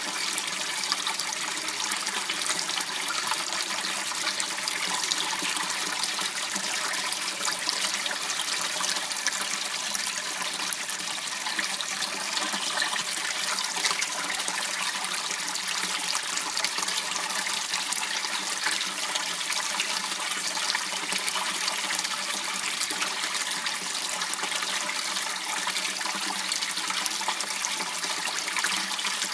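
Water running steadily in a small waterway, a continuous trickling rush with no pauses.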